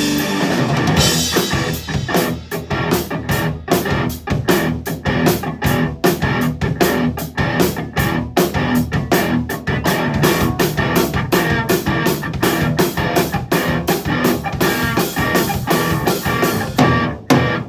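Music with guitar and drum kit playing a fast, even beat, stopping near the end.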